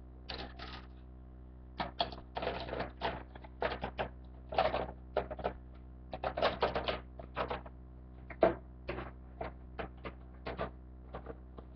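Irregular clicking and clattering of small hard objects being handled, in uneven clusters with short pauses between.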